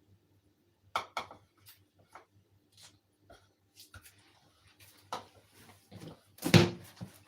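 Scattered clicks and knocks of kitchen handling as chopped red bell pepper is moved into a bowl, with a louder thump about six and a half seconds in, over a faint steady hum.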